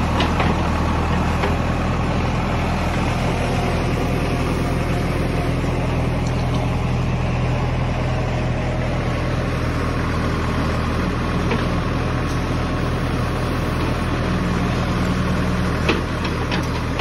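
JCB 3DX backhoe loader's Kirloskar diesel engine running steadily, with a few sharp clicks and a brief higher hum near the end.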